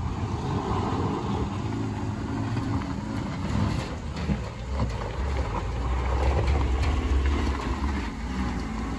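Small cab-over pickup truck's engine pulling it up a steep, rough dirt slope, growing louder about halfway through as it comes close and passes.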